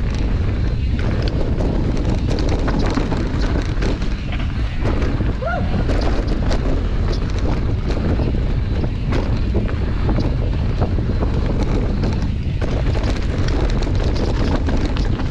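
Heavy wind buffeting on the microphone of a mountain bike on a fast descent. Underneath are scattered clicks and knocks from the bike and tyres rattling over rough ground.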